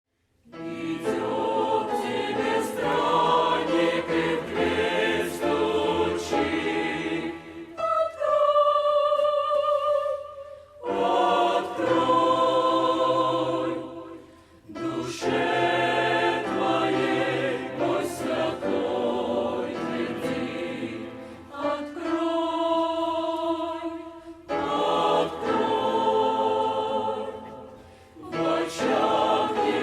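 Church choir singing a Russian hymn in full chords, phrase by phrase, with short breaths between the lines.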